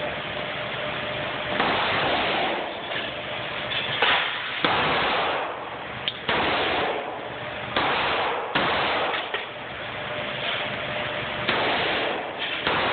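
Handgun shots fired in an indoor shooting range: a string of sharp reports at irregular intervals, roughly one every one to three seconds, each followed by a long reverberant wash.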